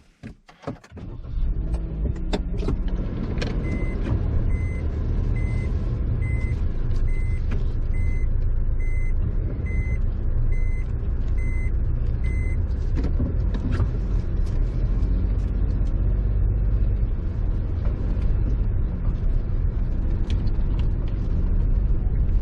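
Car running and moving, heard from inside the cabin as a steady low rumble that comes in after a few clicks in the first second or so. Short electronic beeps repeat about one and a half times a second for around nine seconds.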